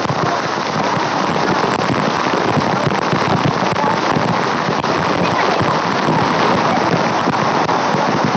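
Waterfall's water pouring down and splashing, a steady rush of water.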